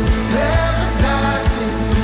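Background music with a singing voice over a steady kick-drum beat, about two beats a second.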